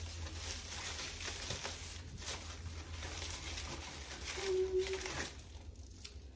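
Brown kraft honeycomb paper packing wrap crinkling and rustling as a jar is unwrapped from it, dying down about five seconds in.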